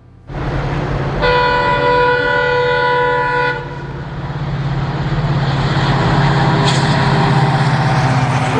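Multiple WDP4D diesel locomotives hauling an express past: a deep steady engine throb, a chord-like horn blast of about two and a half seconds starting about a second in, then the engines and train rolling by, growing louder.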